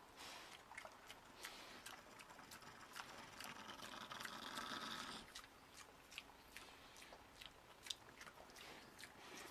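Faint chewing and crunching of a pig feeding off the ground: a run of short sharp crunches, with a softer rushing sound around the middle.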